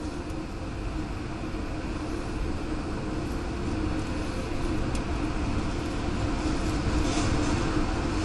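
Steady, low rumbling roar of storm wind, growing slowly louder.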